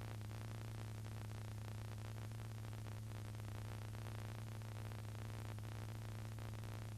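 A steady low electrical hum with a fainter higher overtone over even hiss. It is the noise floor of the recording, with no other sound on it.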